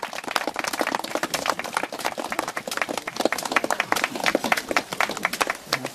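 Small crowd applauding, many hands clapping irregularly.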